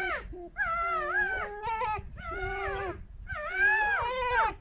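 Pet foxes squeaking at each other in a run of whiny, wavering calls, about five in a row with short breaks. It is a harmless squabble over a shared den.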